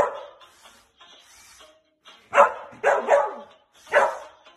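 A dog barking a few times, starting about halfway through.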